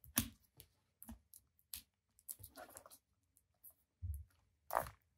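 Scattered small clicks and taps of hands working on the open laptop's internal parts, with a short scraping stretch in the middle, a dull thump about four seconds in and a sharper knock near the end.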